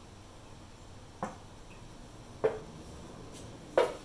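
Three short, sharp knocks about a second and a quarter apart, the last the loudest, from a metal can of paint remover being handled and brought down to the concrete floor.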